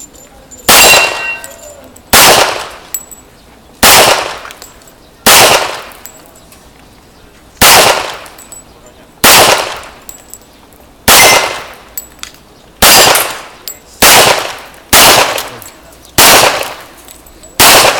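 A firearm shot repeatedly at a shooting range: about a dozen single gunshots, one to two and a half seconds apart, each followed by a short echoing decay.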